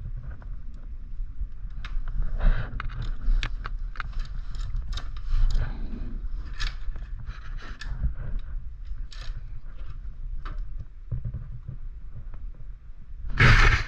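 Irregular metallic clicks and rattles of a bicycle chain and drivetrain parts being handled and worked into place, with one louder clunk near the end.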